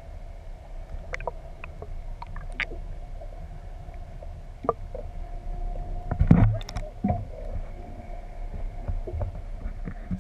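A fishing boat drifting or idling offshore: a steady low rumble with a faint hum under it, scattered small clicks and knocks of gear on the boat, and one louder thump about six seconds in.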